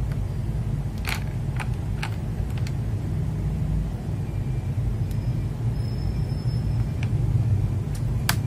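A few short, sharp clicks of plastic keycaps being handled and fitted, four in the first three seconds and two more near the end, over a steady low rumble.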